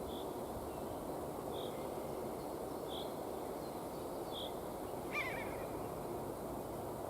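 A bird repeats a short high note about every one and a half seconds, and about five seconds in a different brief, louder call drops in pitch. Under them runs the steady hiss of forest ambience.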